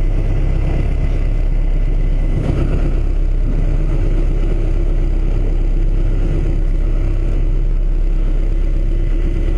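A boat's engine running steadily, a constant low rumble.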